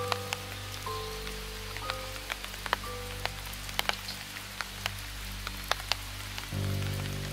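Steady rain with many sharp, separate drops ticking, under soft background music of held notes that deepens near the end.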